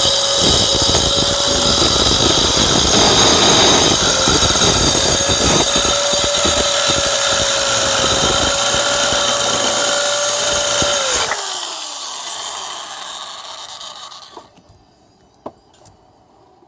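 Hyper Tough mini circular saw running at full speed with a steady high motor whine. About eleven seconds in, the trigger is released and the motor winds down, its pitch falling as the blade coasts to a stop.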